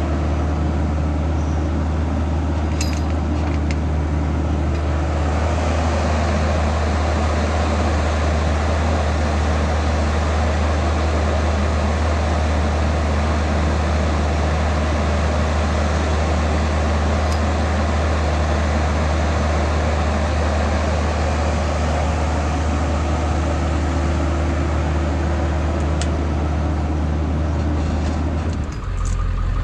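Diesel engine running at a steady speed under a constant mechanical hum, with a few faint clicks; the engine note changes shortly before the end.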